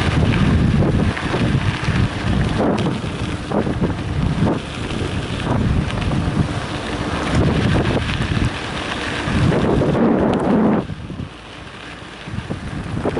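Wind buffeting the microphone of a camera riding on a mountain bike, mixed with the rumble of knobby tyres on a gravel road and irregular jolts from the bumps. About 11 s in it drops much quieter for a second or two, then picks up again.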